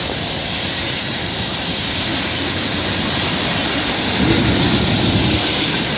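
Freight cars of a passing Canadian Pacific train rolling by, a steady noise of steel wheels running on the rails.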